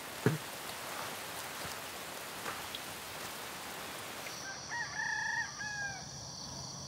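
A rooster crows once, about five seconds in, over a steady high insect drone. Before it there is an even hiss of outdoor ambience, with a single click near the start.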